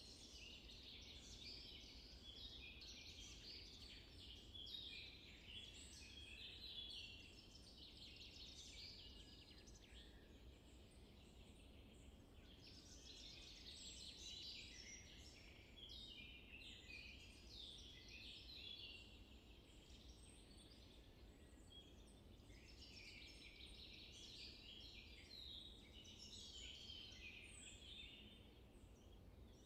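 Faint songbirds chirping in long spells of quick, high twittering notes, over a steady low background hum.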